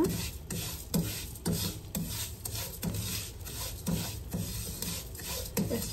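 Wooden spoon scraping and stirring whole spices through hot oil in a nonstick wok, a rasping stroke about twice a second.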